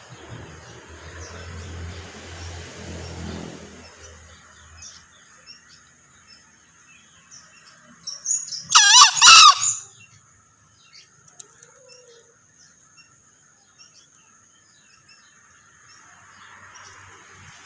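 Male green junglefowl crowing once, a little past the middle: a short, loud, hoarse call lasting about a second and a half, its pitch bending up and down. A steady high-pitched whine runs underneath throughout, and a low rumble fades out after the first few seconds.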